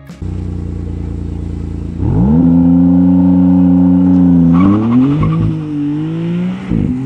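Maserati MC20's twin-turbo V6 idling, then revved up about two seconds in and held at a steady high pitch before the car launches. It pulls away with the pitch climbing and dipping briefly at gear changes.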